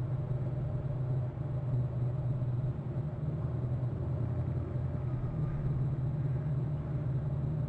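Steady low rumble with a faint constant hum above it, unbroken and without distinct events.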